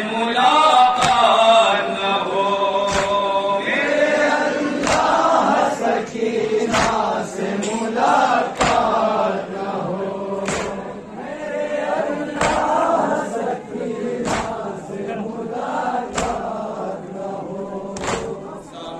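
A man chants a nauha, a Shia mourning lament, through a microphone and loudspeaker, with a group of men chanting along. A sharp slap lands in time about every two seconds, the mourners beating their chests in unison (matam).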